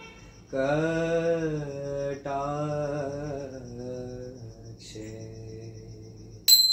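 Voices singing a devotional aarti hymn with long held notes, over a steady high chirping of crickets. Near the end a small metal hand bell is struck once, sharply and loudly, and rings on.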